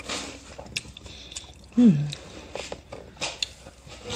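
Close-up eating sounds: wet chewing, lip smacks and clicks, with fingers being licked near the end. About two seconds in there is a short hum that falls in pitch.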